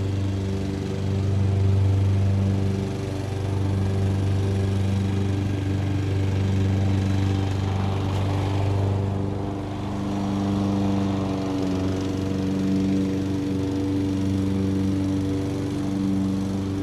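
Distant lawn mower engine running steadily, its drone swelling and easing a little, mixed with the steady whir of an electric fan.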